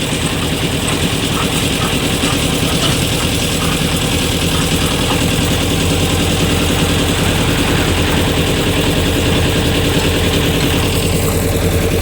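A heavy engine running steadily at an even speed, with a fast, regular low pulse.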